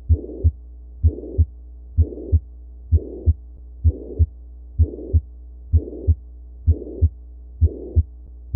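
Auscultated heart sounds of mitral regurgitation: a regular beat of about 65 a minute, with each first and second heart sound joined by a murmur that fills the whole gap between them. A steady low hum runs underneath.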